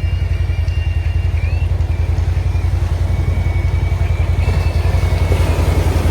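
CFMOTO ATV engine running steadily while riding, with a fast, even low pulse and a thin whine that wavers in pitch above it. It grows a little louder near the end.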